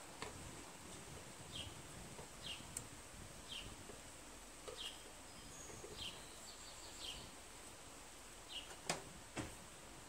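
A bird gives a short, faint chirp about once a second over quiet outdoor background. A few light metal clicks and knocks come from the carburetor being handled against the engine, the two loudest near the end.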